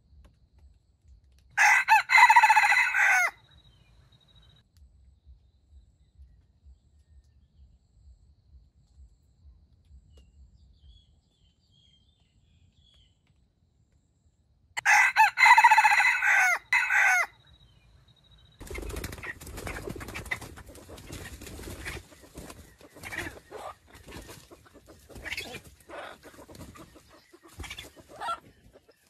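Junglefowl rooster crowing twice, a short crow a couple of seconds in and a longer one about halfway. From about two-thirds of the way in there is a stretch of rustling and scratching with a few short clucks.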